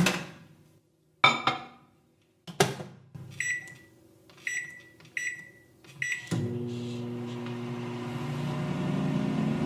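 Microwave oven being started: three clunks of the door being handled, four short keypad beeps, then the oven starts up about six seconds in and runs with a steady hum.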